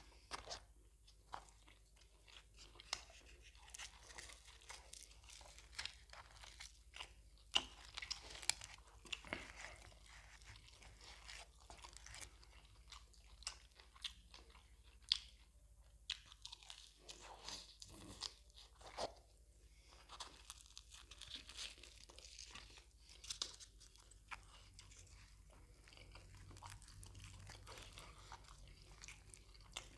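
Close-miked chewing and crunching of fried puri with mutton botti curry, with irregular sharp crackles throughout.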